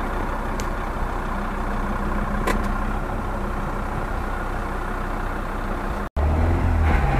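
Jeep Grand Cherokee engine running steadily while its wheels churn through mud and water in a creek bed. About six seconds in the sound breaks off abruptly, and a louder, deeper engine rumble follows.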